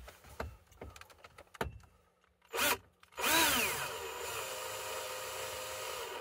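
Cordless drill-driver driving in a 7 mm screw: a few light clicks, a short blip about two and a half seconds in, then a longer run whose whine drops in pitch and then holds steady.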